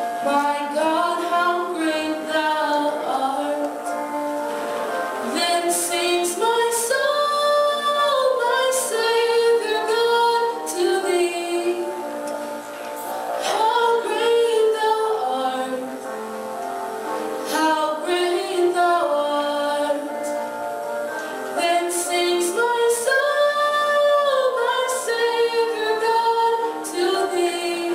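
A woman singing a solo song into a handheld microphone, long held notes with vibrato.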